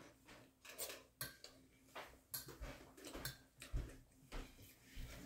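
Metal fork clinking and scraping on a ceramic plate while eating: faint short clicks at an irregular pace, about two a second.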